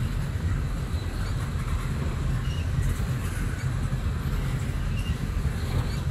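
Railroad tank cars of a long freight train rolling past, a steady low rumble of steel wheels on the rails.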